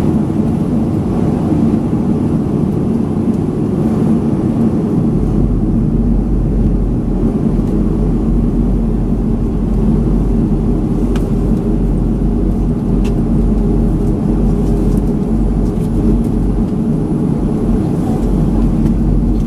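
Steady low rumble inside the cabin of a Boeing 737-500 as it is pushed back from the gate. A deeper low hum joins about five seconds in and holds steady.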